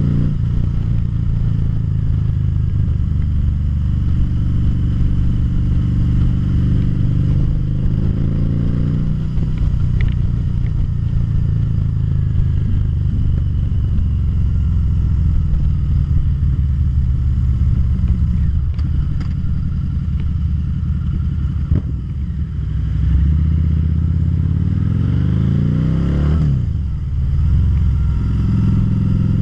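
2013 Harley-Davidson V-Rod Muscle's liquid-cooled Revolution V-twin running under way, heard from the rider's seat. The engine note holds steady, and near the end it drops and climbs again as the bike slows and changes gear.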